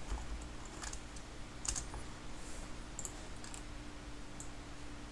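About five scattered clicks of a computer keyboard and mouse, over a faint steady hum.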